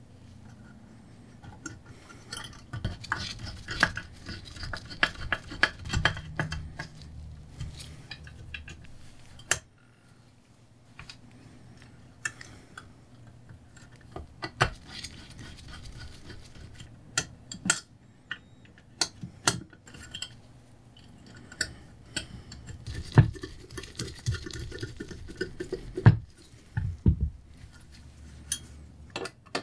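Small metal parts and a screwdriver clinking, tapping and scraping irregularly as brass switch contacts and screws are fitted onto an electromechanical light chaser's frame, with a few sharper clacks near the end.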